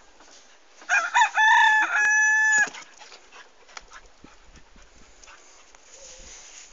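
A rooster crowing once, about a second in: a few short broken notes, then a long held note that cuts off sharply.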